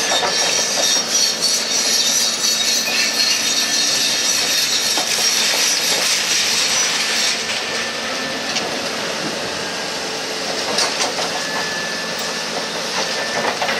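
Crushed concrete rubble scraped across the floor slab by a demolition excavator's pulverizer attachment and pouring down through an opening in the floor: a steady gritty rush, heaviest in the first half. A faint steady machine hum runs underneath.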